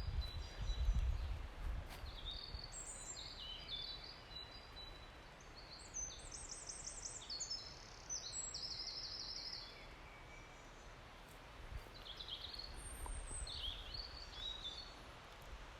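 Songbirds singing in a forest: short, high phrases from several birds, with a fast run of repeated notes about six seconds in. A low rumble sits underneath, strongest at the start and at the very end.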